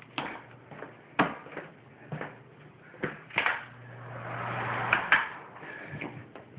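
Footsteps on a bare hardwood floor, about one a second, then a door being handled and opened, ending in two sharp knocks a little before the end.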